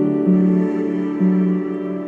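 Background music: slow, soft instrumental with sustained notes changing about once a second.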